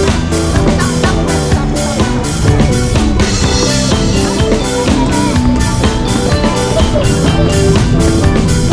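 Background music with a steady drum-kit beat and pitched melody notes.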